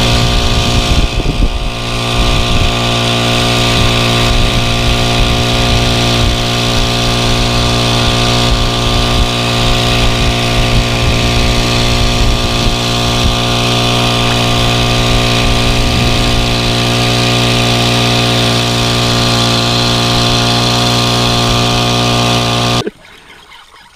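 Small outboard motor on a fishing kayak running steadily at constant pitch while under way. It stops abruptly about a second before the end.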